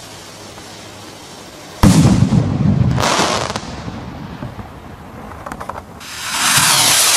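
Firework rockets going off: a sharp, loud bang about two seconds in with a rumbling tail, a second burst about a second later, then a few faint crackles. Near the end comes a loud steady hiss, like the whoosh of another rocket launching.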